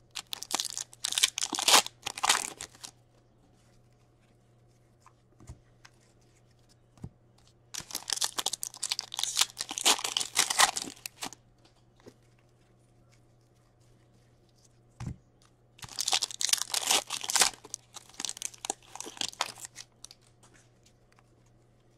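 Foil wrappers of Upper Deck Series 1 hockey card packs being torn open and crinkled by hand, in three bursts of a few seconds each with near quiet between.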